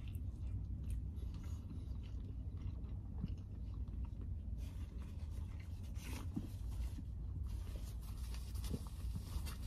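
A man chewing a mouthful of sandwich, with soft crinkles and scrapes of a paper food wrapper, over a steady low hum.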